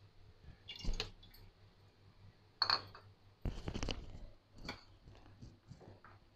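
Faint, scattered knocks and clinks of kitchen handling, a pot and utensils being moved. There are a few separate taps, with the loudest cluster about halfway through.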